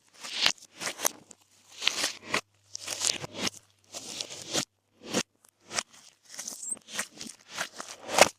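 Glossy slime being squeezed, pressed and stretched by hand, giving sticky pops and crackles in quick, irregular bursts.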